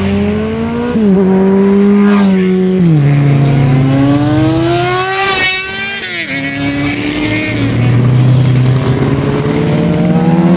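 Superbikes riding past one after another at speed, their engines running high with the note dropping in steps. About five and a half seconds in, one passes close and fast, its engine note rising sharply and then falling away.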